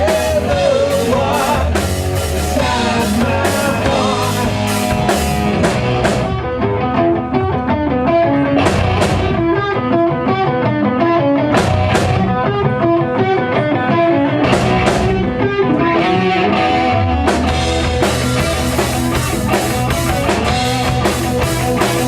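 Rock band playing live with electric guitars, bass and drum kit. About six seconds in, the low end and drums thin out to mostly guitar lines with occasional cymbal crashes, and the full band comes back in near the end.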